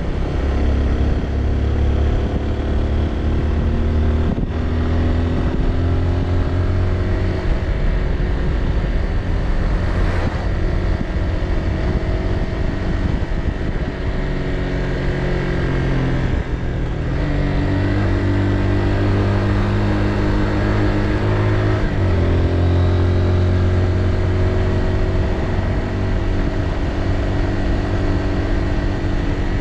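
Motorbike engine running under way, its pitch slowly rising and falling with the throttle and dipping briefly twice in the second half.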